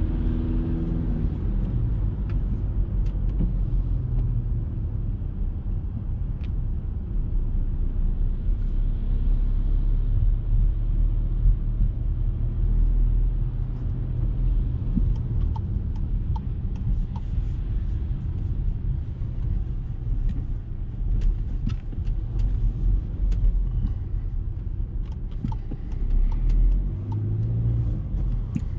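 Cabin noise inside a 2019 Škoda Kodiaq with a 2.0 TDI four-cylinder turbodiesel, driving in town traffic. There is a steady low rumble of engine and tyres on a wet road, with a few faint ticks.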